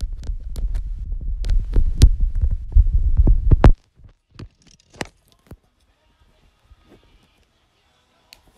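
Handling noise on a phone's microphone: low rumbling thumps and rubbing with sharp clicks as the phone is moved, stopping abruptly about four seconds in, then a few faint clicks.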